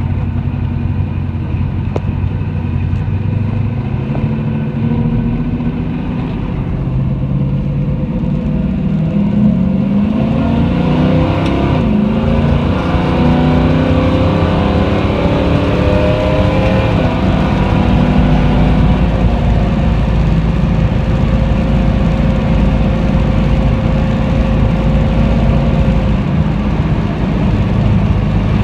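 1969 Plymouth Road Runner's V8 engine running under way, accelerating with a rising engine note a little under halfway through, then holding a steady pitch at speed.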